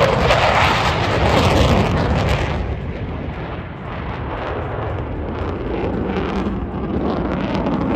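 F-15 Eagle fighter making a low pass with its twin jet engines in afterburner: a loud, crackling roar, brightest as it goes by. After about two and a half seconds it turns duller and lower as the jet climbs away.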